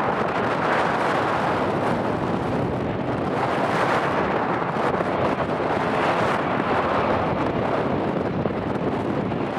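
Jet airliner engine noise: a loud, steady rushing sound that swells and eases slowly.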